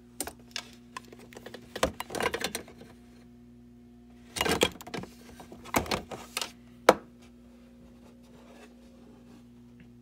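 Jars, cans and plastic containers being handled and shifted on refrigerator shelves: bursts of clicks, knocks and clatter, the sharpest single knock near seven seconds in. A steady low hum runs underneath.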